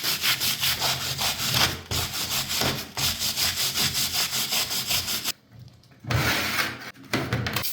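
Fast back-and-forth abrasive scrubbing by hand, about five strokes a second. It breaks off for a moment a little past five seconds in, then resumes in a few shorter strokes.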